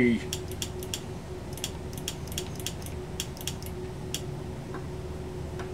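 Light, irregular clicks, packed close together in the first second and a half and sparser after, as a Drake 2-NT tube transmitter in transmit position is keyed, its key and relay clicking. Under the clicks runs a steady hum.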